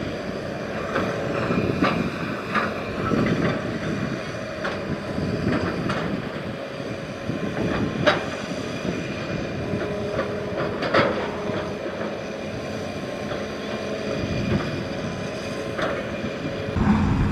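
Hitachi hydraulic excavator's diesel engine running steadily under working load, with repeated sharp knocks and clanks as it digs and loads soil.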